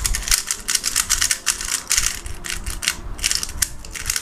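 Plastic 3x3 speedcube being turned rapidly by hand: a fast, irregular run of plastic clicks and clacks as the layers snap round. The cube is freshly lubricated with a fast silicone lube and turns noticeably faster.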